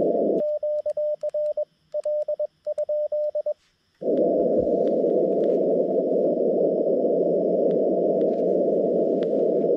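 Xiegu G90 transceiver sending Morse code: its sidetone, a single tone near 600 Hz, is keyed on and off from the paddle key for about three seconds while the receiver's hiss is cut out. The steady filtered band hiss of the receiver comes back about four seconds in.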